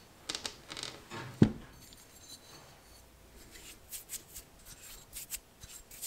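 Small metal hand tools, including a dental-style porting handpiece, being handled and set down on a workbench mat. Scattered clicks and light clinks, with one sharp knock about a second and a half in.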